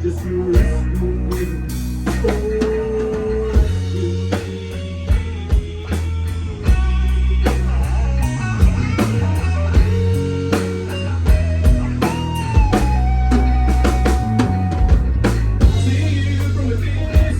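Instrumental passage of a rock song: guitar over bass and a drum kit, with a held lead note that bends down partway through.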